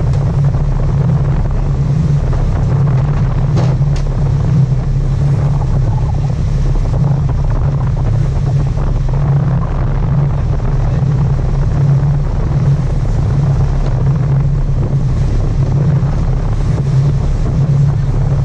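Sport-fishing charter boat's engine running steadily, a constant low hum, with wind on the microphone.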